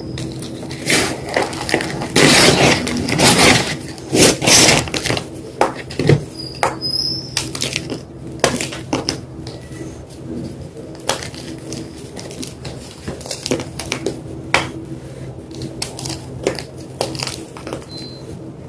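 White gym chalk being crunched and crumbled: a dense run of crackling in the first few seconds, then sparser crackles and snaps.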